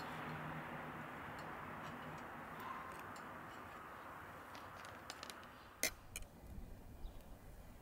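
Portable gas cassette stove burner under a cast-iron waffle iron, hissing steadily with faint ticks. The hiss dies away about five and a half seconds in, followed by a few sharp clicks and clinks.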